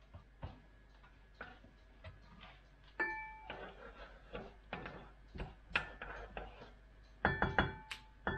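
Kitchen utensil knocking and clinking against a cooking pot as spaghetti is stirred in boiling water: scattered sharp taps, one about three seconds in ringing briefly, and a quick run of several near the end.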